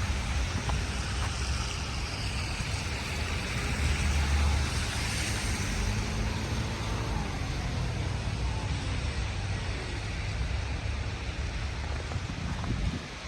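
Wind rumbling and buffeting on the microphone over a steady hiss of street traffic noise.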